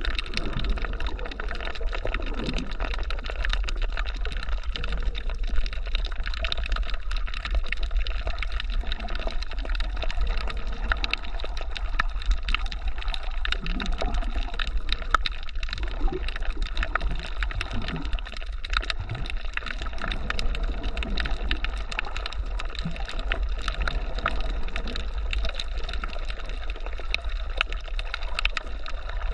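Underwater sound heard by a submerged camera moving over a reef: a steady low rumble of moving water with constant fine crackling clicks throughout.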